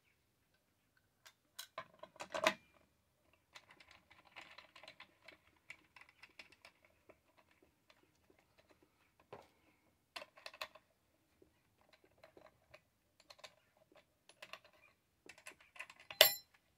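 Small irregular clicks and rattles of metal parts being handled while a Stihl MS661 chainsaw's guide bar and chain are fitted by hand. It ends with a sharp metallic clink that rings briefly.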